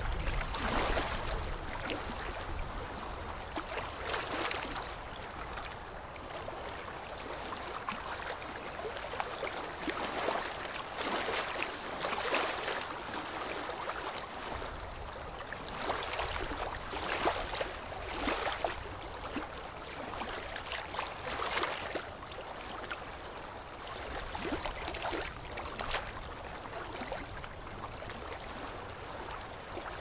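Small ocean waves lapping on a sandy shore: a continuous foamy wash that swells as each wave runs up the sand, every few seconds at irregular intervals.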